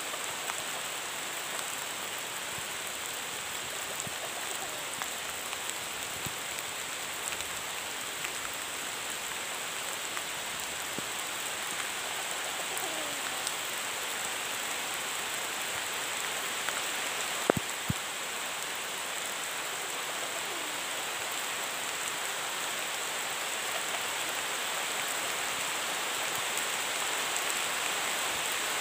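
Steady tropical-forest ambience: an even hiss with a high, steady insect drone. Two sharp clicks close together a little past halfway.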